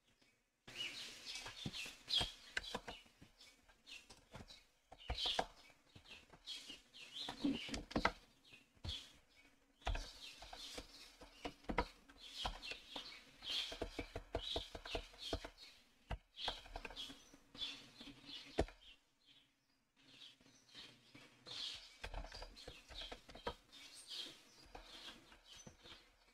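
Typing on a computer keyboard: irregular runs of quick key clicks, with a brief lull about three-quarters of the way through.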